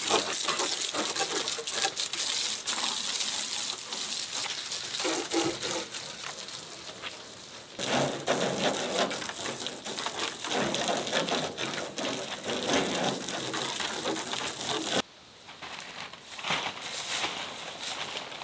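Garden hose spraying water onto a pickup truck's body and spattering off it, a steady hiss. About three-quarters of the way through it cuts off and gives way to a quieter stretch.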